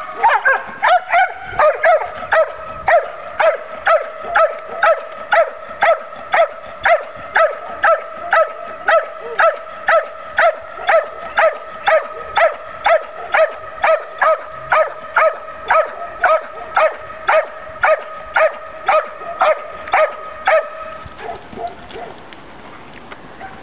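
Belgian Malinois barking steadily at a helper in a blind during bark-and-hold (Verbellen) training, about two barks a second. The barking stops about 21 seconds in.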